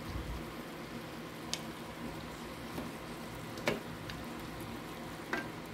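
Chicken and bell pepper sizzling steadily in a sauce in a square pan, with a wooden spatula stirring and a few sharp knocks against the pan.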